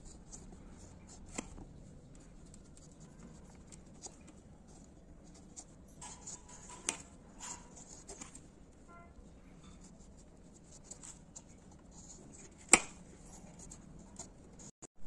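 Small curved knife paring the skin off a ripe papaya: a run of soft, faint scraping and slicing strokes, with a few sharp clicks, the loudest one late on.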